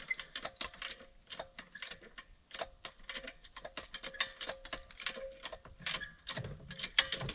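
A jack being worked to raise a board, a quick run of sharp mechanical clicks, several a second.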